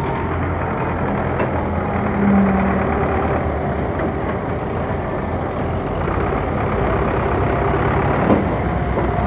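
Heavy diesel engines of a wheeled excavator and a Belarus tractor running steadily under work while soil is loaded into a trolley. A short steady tone sounds about two seconds in, and a sharp knock comes near the end.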